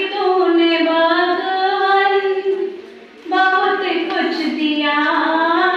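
A woman singing a Hindi song unaccompanied into a microphone, in long drawn-out notes. There are two phrases, with a short break about three seconds in.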